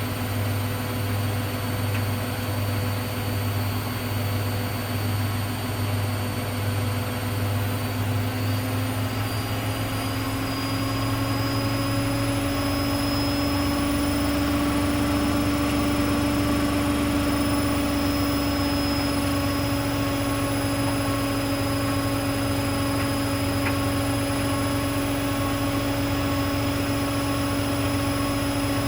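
Hoover Dynamic Next front-loading washing machine spinning, its motor giving a steady whine. About ten seconds in the whine rises a little in pitch and gets slightly louder as the drum speeds up, then holds steady at the higher speed.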